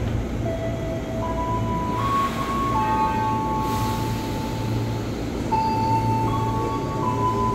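JR 205 series electric commuter train standing at the platform, a steady low hum from its equipment swelling and easing every second or two. A slow tune of long held notes plays over it.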